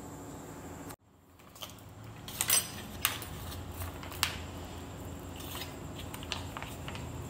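A few short, sharp clicks and knocks from handling a foil sauce pouch and a pan on the stove, over a steady low hum.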